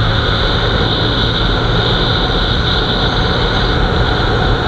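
Yamaha Virago 125's small air-cooled V-twin running steadily on the move through its drilled-out exhaust, with wind rushing over the microphone.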